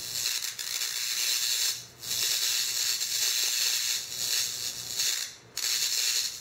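Spark from an ignition transformer jumping between a stick-welding electrode and a steel plate: a steady, high crackling hiss over a faint low hum. It cuts out briefly twice, about two seconds in and again about five and a half seconds in, where the spark is lost because the arc is not being held constant.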